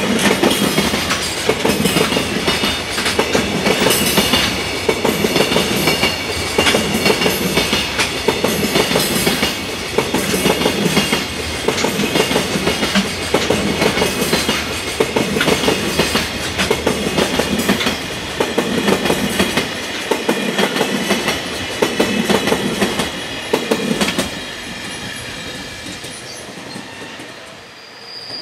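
Long freight train of container wagons running past, its wheels clattering over the rail joints in a steady, repeating clickety-clack about every second and a half. The clatter stops about 24 seconds in as the last wagons go by, leaving a fainter, fading rumble.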